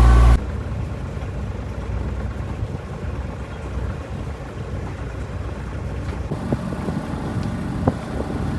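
A loud, steady machine hum cuts off abruptly just after the start. A low rumbling wind noise on the microphone follows, with a few soft knocks near the end.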